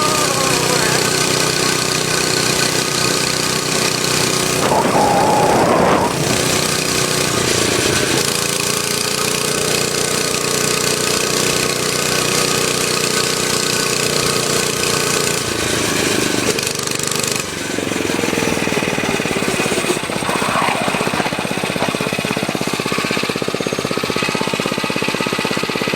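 Motovox mini bike's small gasoline engine running under way, its speed rising and falling several times as the throttle is worked.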